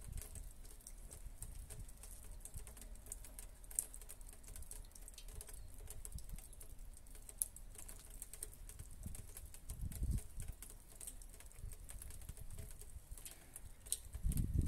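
Scattered raindrops pattering on a wooden slatted bench and the paving around it: irregular soft ticks throughout, with a couple of low rumbles about ten seconds in and near the end.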